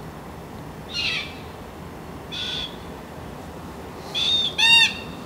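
A bird calling: short, high-pitched calls about one and two and a half seconds in, then a louder pair near the end, over a steady background hiss.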